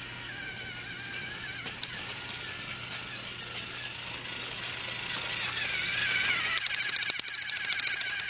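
A motorized toy train's small electric motor and gears run with a whine that wavers in pitch. Near the end a rapid, even clicking sets in and the sound gets louder.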